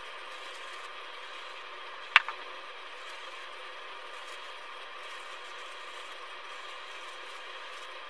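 A steady, even hiss throughout, with one sharp click a little over two seconds in and a fainter click just after it.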